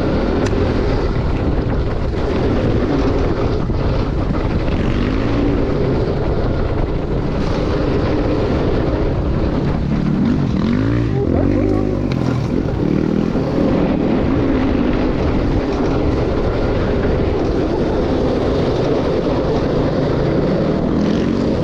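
Electric dirt bike ridden along a dirt woodland trail: a steady rush of wind and tyre noise, with the motor's whine gliding up and down as the bike speeds up and slows.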